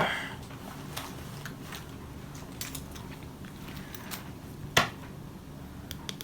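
Small plastic clicks from pressing the buttons on a Dodge key fob: a few scattered, faint taps, with one sharper click about five seconds in.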